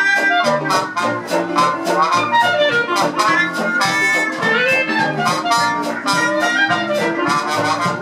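Traditional jazz band playing live, with clarinet, trumpet and trombone over upright bass and drums keeping a steady beat.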